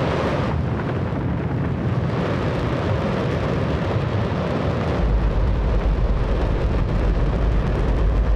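Space Shuttle main engine, a hydrogen-oxygen rocket engine, firing on a test stand: a continuous, extremely loud rocket noise, a deep rumble under a hiss, which grows heavier in the lowest notes about five seconds in.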